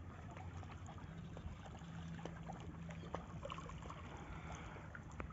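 Faint water lapping and trickling at a river's edge, with many small ticks and drips, over a low steady hum.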